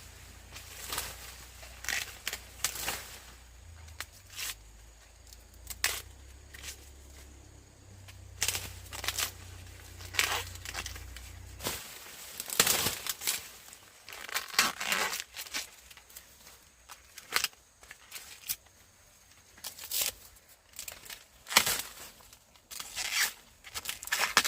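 Irregular tearing and rustling of dry plant material, a quick rip every second or so. A low hum runs underneath and stops abruptly about halfway through.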